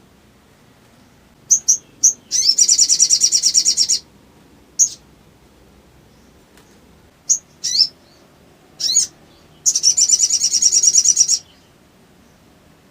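A spiderhunter (sogok ontong) calling loudly: sharp single high chirps, and two long, fast trills of repeated high notes, each lasting about a second and a half, one in the first third and one near the end.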